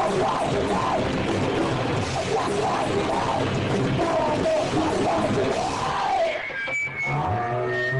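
Live rock band playing loud and dense with distorted guitars and drums. The song breaks off about six seconds in, leaving a held low drone and ringing, sustained guitar notes from the amplifiers.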